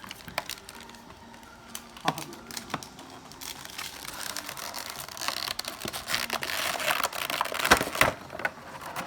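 Packaging of a Pokémon Champion's Path card box being opened by hand: a few sharp clicks, then crinkling and rustling of plastic and cardboard that grows louder through the second half.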